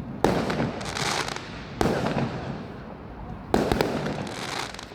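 Fireworks going off: three sharp bangs, about a third of a second, two seconds and three and a half seconds in, each followed by crackling that fades away.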